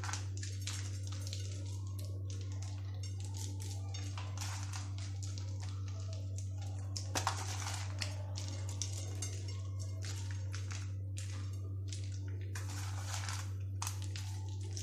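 Chopped almonds and peanuts scattered by hand from a plastic tub onto fried flatbreads, making irregular light rustles and ticks, over a steady low electrical hum that stops suddenly at the very end.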